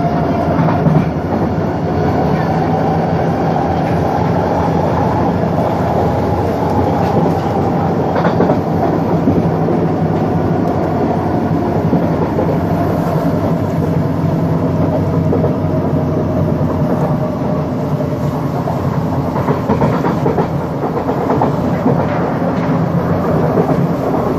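Inside a moving Vancouver SkyTrain car: steady rumble of the wheels on the elevated guideway, with the whine of the car's linear induction motors. The whine climbs a little over the first few seconds, then slowly falls.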